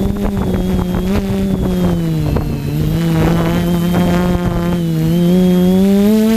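TBS quadcopter's electric motors and propellers buzzing steadily in flight, the pitch dipping lower about two seconds in and climbing back near the end.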